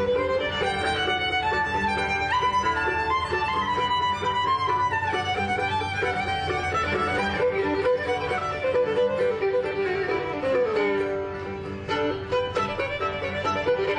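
Instrumental background music: a violin melody over plucked strings.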